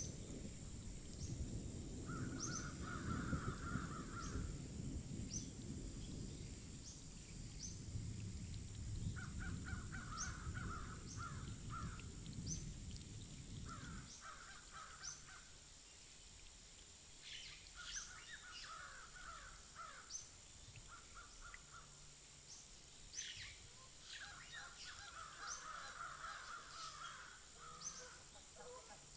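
Faint ambience of wild birds calling, with repeated harsh call series and short high chirps over a thin steady high tone. A low rumble underneath cuts off abruptly about halfway through.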